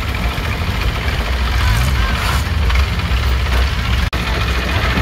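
Long-tail boat engine running steadily under passengers' and market crowd's voices; the sound drops out for an instant about four seconds in.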